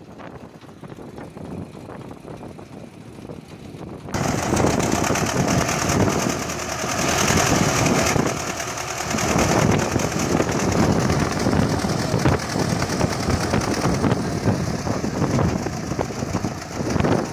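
Tractor engine running. It is quieter at first, then becomes suddenly much louder about four seconds in and keeps running steadily.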